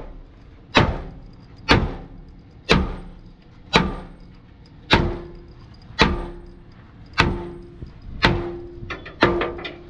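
Sledgehammer blows on a steel Isuzu truck chassis rail, about one heavy strike a second, each leaving a short metallic ring. Near the end come a few quicker, lighter knocks.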